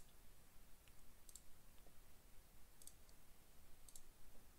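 Faint computer mouse clicks, about four of them, each a short sharp tick, most heard as a quick pair, against near silence. They are the clicks that place the corner points of a box in a 3D design program.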